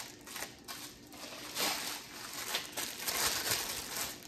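Clear plastic packaging around wooden spoons crinkling and rustling in irregular bursts as it is handled.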